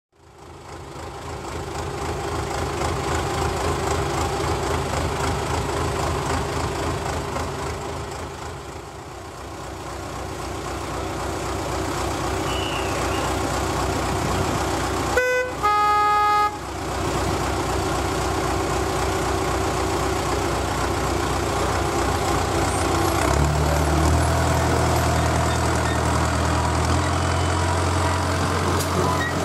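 Alan Keef four-wheel diesel-hydraulic narrow-gauge locomotive running with its engine idling, then sounding its horn twice about halfway through, the first blast short and the second about a second long. Near the end the engine note deepens and grows louder as the locomotive pulls away with its train.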